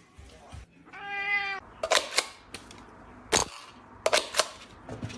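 A domestic cat meows once, a single held call about a second in. Several sharp clicks or knocks follow.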